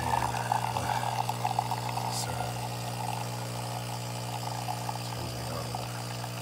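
De'Longhi Magnifica S bean-to-cup espresso machine brewing: a steady hum from its pump, with coffee streaming from the twin spout into a mug.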